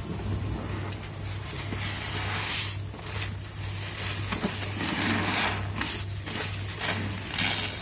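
Soap-soaked foam sponges squeezed and wrung by gloved hands in thick suds: wet squelching and fizzing, crackling foam in repeated swells, over a low steady hum.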